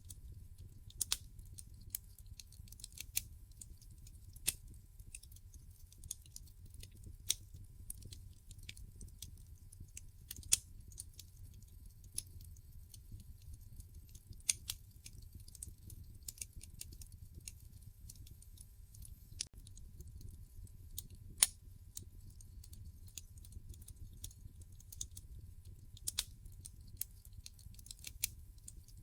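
Wood fire in a fireplace crackling: irregular sharp pops and snaps, a few much louder than the rest, over a low steady rumble.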